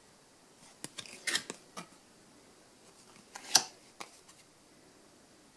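Topps Force Attax trading cards handled by hand and flicked from one to the next: a few short crisp clicks and rustles about a second in, and a sharper snap of card stock about three and a half seconds in.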